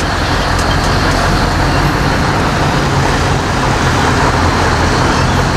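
Scania R580 truck's V8 diesel engine running with a steady low drone, heard from inside the cab, over a constant wash of road traffic noise.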